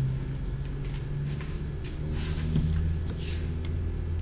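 Faint rustles and scrapes of electrical wire and a crimping tool being handled, over a low steady hum.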